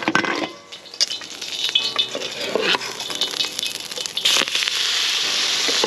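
A metal spatula clinks and scrapes against a steel bowl as thinly sliced raw beef is scooped out. About four seconds in, a steady sizzle starts as the beef drops into the hot wok, and it keeps going.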